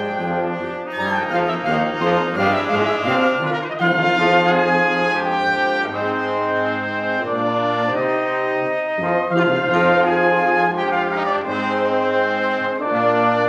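Live wind and brass ensemble with tuba playing held chords that shift about every second, over a low bass line.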